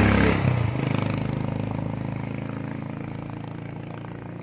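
A motor vehicle passing close by: its engine note is loudest at the start, drops in pitch as it goes past about half a second in, then fades steadily as it drives away.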